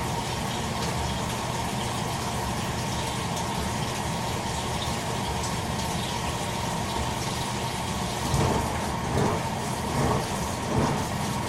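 Toshiba AW-42SEE4 top-loading automatic washing machine in its early cycle: a steady rush of water filling the tub with a faint hum. Near the end a run of louder surges begins, about one a second.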